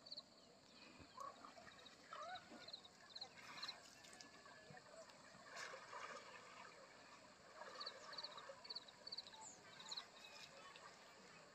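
Faint riverside ambience: a low trickle of water, with bouts of high, quick chirps in groups of three or four and a few soft scattered calls.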